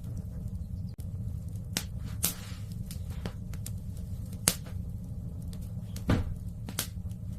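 Wood fire crackling in a fireplace: irregular sharp pops over a steady low rumble, with a brief hiss about two and a half seconds in.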